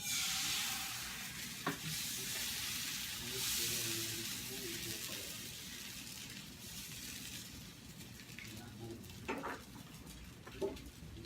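Banh cuon rice batter sizzling as it goes into a hot oiled pan. The sizzle starts suddenly, is loudest for the first few seconds and slowly dies down, with a few light utensil knocks.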